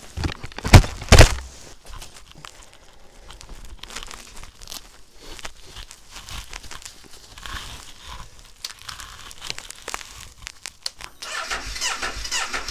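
Two sharp hand claps about a second in. Near the end comes a brief, failed start on a 2014 Honda CBR500R: the electric starter turns over weakly and the engine does not catch, the sign of a weak battery.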